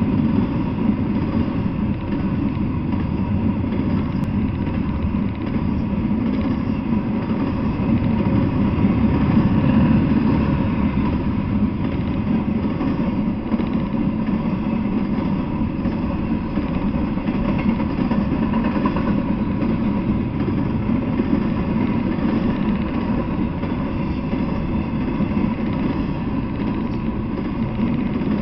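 Double-stack intermodal freight train rolling past: a steady, loud rumble of its loaded well cars on the rails.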